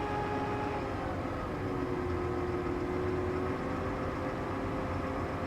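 New Holland T7.315 tractor's six-cylinder diesel engine running steadily, heard from inside the cab, its note shifting slightly a couple of seconds in.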